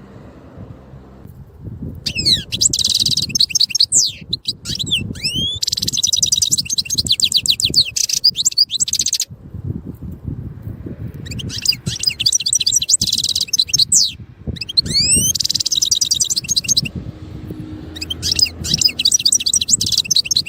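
European goldfinch singing: three long phrases of rapid, high twittering full of quick trills and sliding notes, beginning about 2 s, 11 s and 19 s in, with short pauses between them. A faint low rumble runs underneath.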